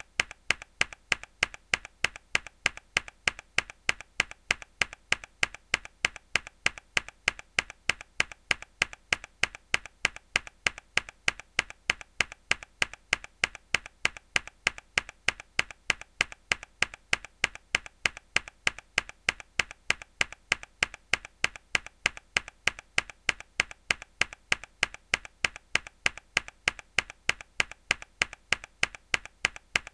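A mechanical keyboard key pressed hard, again and again at an even pace of about three clicks a second, each click sharp and identical to the last.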